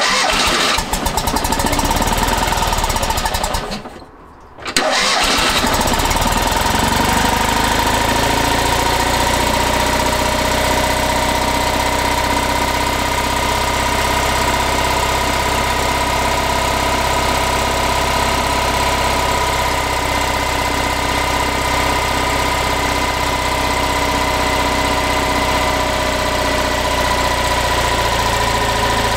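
Freshly rebuilt Fiat 500 F 499cc air-cooled two-cylinder engine started for the first time: it runs briefly, stops for about a second around four seconds in, then catches again and settles into a steady idle with a steady whine over it.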